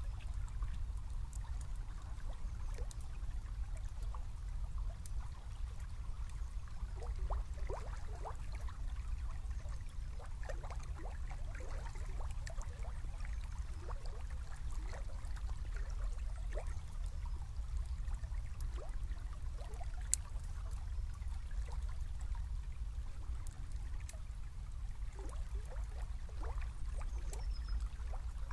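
Small river flowing: water trickling and gurgling in many small, irregular splashes over a steady low rumble.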